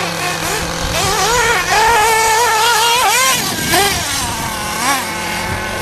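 Small engine of a radio-controlled off-road buggy revving up and down as the car is driven, its high pitch climbing and dropping again and again with the throttle.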